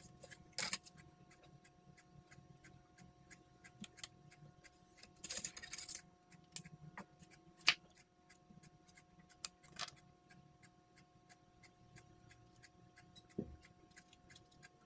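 Marker and ruler handled on a bare circular saw blade: a few sharp clicks and a brief scratching about five seconds in, over a faint, even ticking about three times a second.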